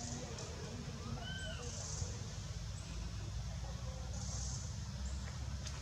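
A couple of short, high, arched chirping calls from a small animal about a second in, over a steady low rumble.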